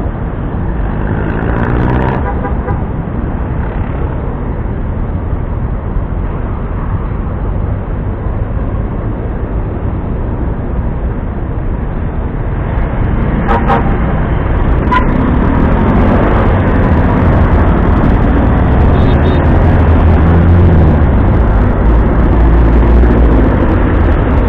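City road traffic heard from a scooter stopped at a junction: engines idling and running around it, with a couple of short horn beeps about halfway through. The low rumble grows louder in the second half as the scooter and the traffic pull away.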